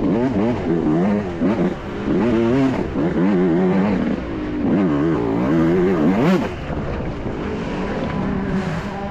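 125cc dirt bike engine revving up and down over and over as the throttle is opened and closed, heard from the rider's helmet. About two-thirds of the way in the revving stops and the engine runs lower and steadier.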